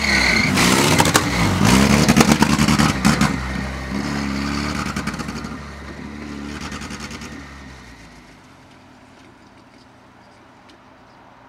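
Race tractor's engine revving up and dropping back about four times as it passes close and pulls away, with a crackle while it is near. The sound fades to faint by about eight seconds in.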